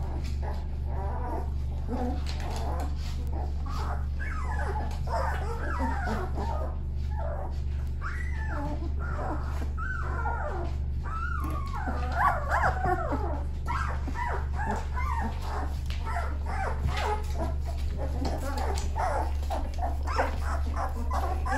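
Thirteen-day-old Shepsky puppies whimpering and crying: many short, high squeals that rise and fall in pitch, most intense about halfway through, over a steady low hum.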